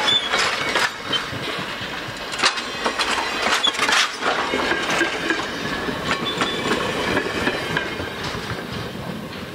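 Passenger cars' steel wheels rolling past on the rails, clacking over rail joints with faint high squeals. The sound fades as the last car passes and the train moves away.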